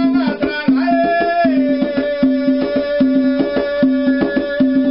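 Rope-tuned hand drum played with bare hands in a quick, steady rhythm, while a man sings, holding one long note from about a second in. A low note recurs about once a second underneath.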